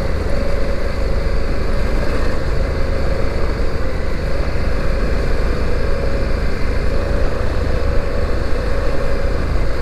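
Honda Africa Twin motorcycle engine running steadily as the bike is ridden, a continuous hum holding an even pitch.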